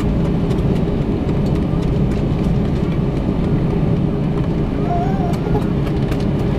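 Steady engine noise inside the cabin of a jet airliner, its underwing turbofan engines running at taxi power as it rolls and turns onto the runway.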